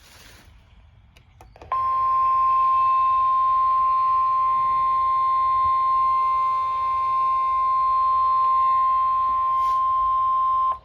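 Weather radio emergency alert tone: a single loud, steady, high tone comes on about two seconds in, holds without a break for about nine seconds, then cuts off suddenly. It signals that a warning broadcast follows. A brief burst of static and a couple of clicks come before it.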